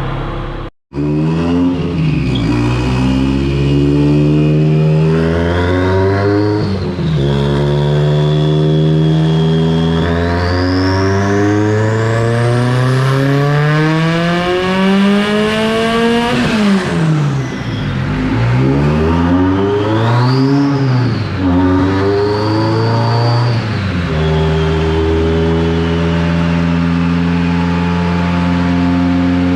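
Subaru EJ25 flat-four engine in a VW Beetle revving on a chassis dyno: after a short rev it climbs steadily in pitch for about ten seconds with a high whine rising alongside, then drops off sharply. Two short revs follow before it settles to a steady idle.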